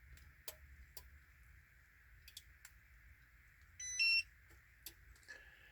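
A few faint clicks, then one short electronic beep about four seconds in that steps up in pitch partway through, over a faint steady hiss.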